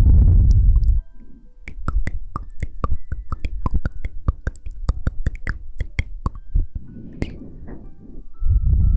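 Close-miked ASMR trigger sounds: a low, heavy rubbing rustle on the microphone, then a long run of sharp, irregular clicks and taps, several a second, and rubbing again near the end.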